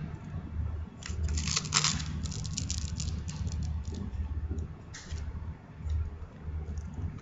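A smartphone in a loose plastic wrap being handled and turned over in the hands: crackling and clicking in clusters, busiest between about one and three seconds in, over a steady low hum.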